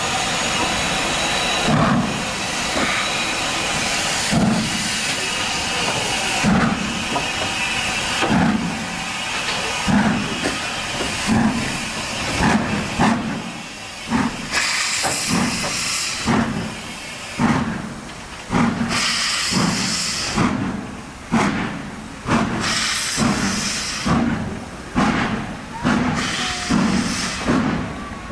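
LMS Stanier Black 5 4-6-0 steam locomotive working a train away from a standstill: loud exhaust beats, about one every two seconds at first, quickening to about one a second, over a steady hiss of steam from the open cylinder drain cocks.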